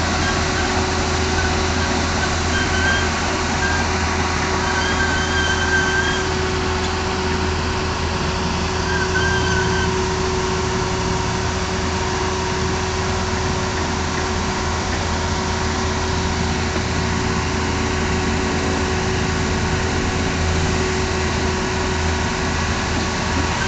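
Heavy construction machine's engine running steadily at a constant low, humming idle. A few short, wavering high tones sound over it in the first ten seconds.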